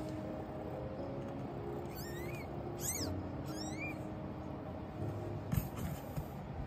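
Newborn kittens mewing: three short, high-pitched, rising squeaks about two to four seconds in.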